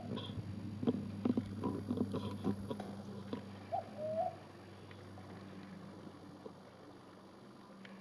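One snore-like mating call from the animal known locally as the 'snore monster', about four seconds in: a quick upward note and then a short held note. A few scattered knocks and clicks come in the first few seconds over a steady low hum that fades about halfway through.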